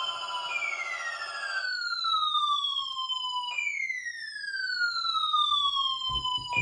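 Electronic siren tone that repeatedly falls in pitch, each downward sweep lasting about three seconds before it jumps back up and falls again. A denser warbling siren pattern overlaps the first part and cuts off a little under two seconds in.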